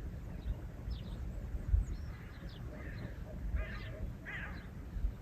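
Small birds chirping in short scattered notes, and a farmyard bird gives two short calls a little past halfway, over a low uneven rumble.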